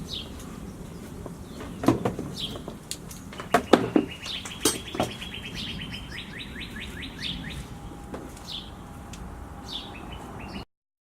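Songbirds singing: a fast, even trill heard twice and short down-slurred chirps, with a few sharp knocks about two and four seconds in. The sound cuts off abruptly near the end.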